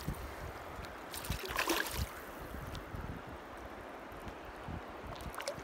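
Shallow river water splashing and lapping as a released fish swims off, with a couple of brief splashes. Wind rumbles on the microphone throughout.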